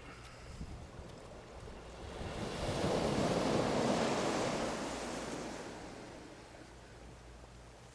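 A single ocean wave breaking and washing up the stony beach, swelling to its loudest about three to four seconds in and fading away near the end. Low wind rumble on the microphone underneath.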